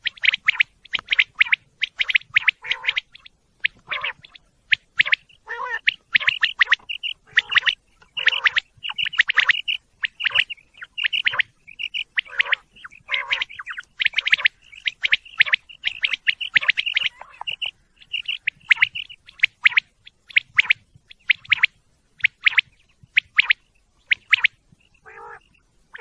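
Common quail calling: loud, sharp, short notes come in quick clusters of several a second, separated by brief pauses. Some notes dip lower and sound throatier.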